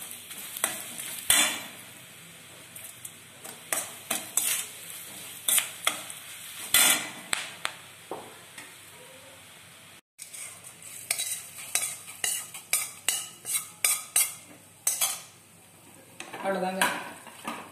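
Ghee tempering of cumin, curry leaves and pepper sizzling in a stainless steel kadai while a perforated steel ladle stirs and clinks against the pan. About ten seconds in it cuts to the ladle stirring the tempering into soft cooked millet pongal in a pressure cooker, in a quick run of scrapes and knocks on the metal.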